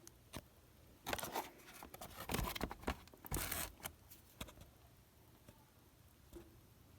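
Toy packaging being handled and opened: a few seconds of rustling and scraping, then a few light clicks and taps.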